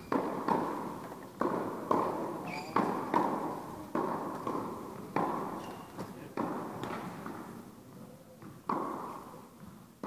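Tennis balls struck back and forth with rackets in a quick rally, about a dozen sharp pocks, each echoing around an indoor tennis hall. The hits come a half second to a second apart, and there is a longer gap about eight seconds in.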